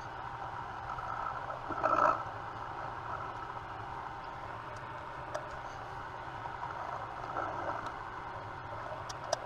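Drill running steadily while center-drilling a metal ring, with a brief louder cutting scrape about two seconds in and a sharp click near the end.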